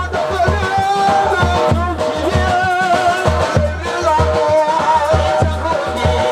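Live Manipuri Thabal chongba dance music: big bass drums beat a steady rhythm under a wavering melody line.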